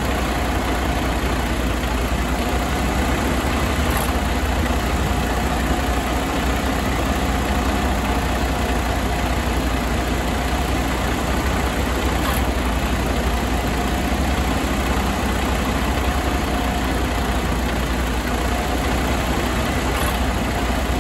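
Detroit DD15 inline-six turbo diesel truck engine idling steadily, with a faint steady whine above the engine note.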